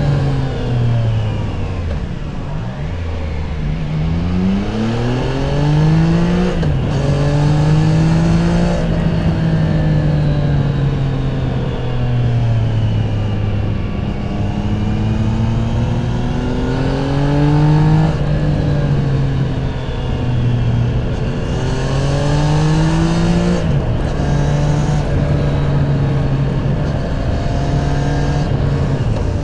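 Triumph Tiger 660 Sport's inline three-cylinder engine through its stock exhaust, under way: the revs rise and fall again and again as the throttle is opened and closed, with sudden drops in pitch about seven seconds in and again near the end of the ride's second half.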